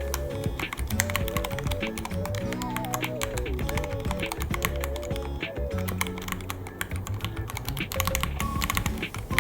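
Fast, continuous typing on a Ducky One 3 mechanical keyboard: dense, irregular keystroke clicks, with background music playing alongside.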